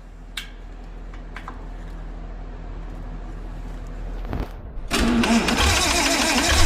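1950s Lincoln V8 starting for the first time in years on a freshly rebuilt carburetor: a steady low hum and a couple of faint clicks, then about five seconds in the engine fires and runs roughly.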